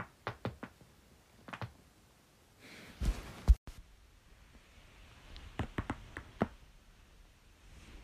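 Human joints cracking. First a quick run of about six sharp pops as a neck is twisted by hand, with a louder thump a few seconds in. Then a second run of about five rapid cracks from another joint.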